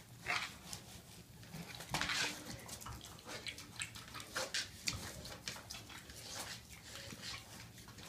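A mini pig nosing and biting at a hanging piñata: irregular rustling and scraping bursts as its snout works at the piñata, the loudest about two seconds in.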